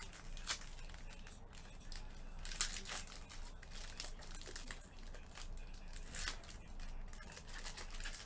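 Foil pack wrappers crinkling and tearing as they are unwrapped, an irregular run of crackles with a few sharper snaps.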